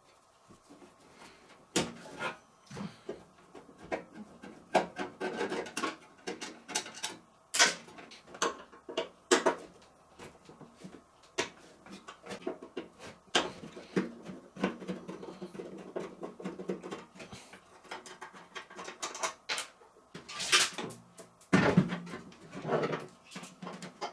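Irregular clicks, knocks and short scraping sounds of tools and parts being handled as a microwave oven is taken apart.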